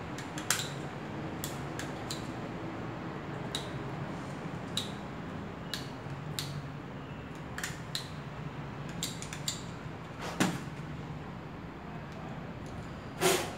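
Scattered plastic clicks and taps of a washing machine's water-level pressure sensor and its wires and hose being handled and worked on, over a steady low hum. The two loudest clicks come about ten seconds in and just before the end.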